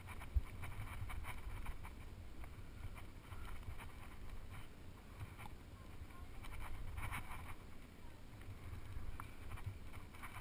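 Low, unsteady wind rumble on a head-mounted camera's microphone, with light scuffs and rustles as a climber's hands and body move over the rock.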